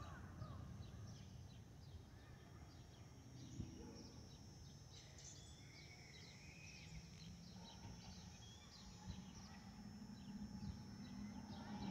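Distant Airbus A319-132 climbing overhead: a faint low rumble from its IAE V2500 engines that grows louder near the end, with a steady whistle coming in about eight seconds in, the fuel over-pressure protector (FOPP) cavity whistle typical of the A320 family. Small birds chirp throughout.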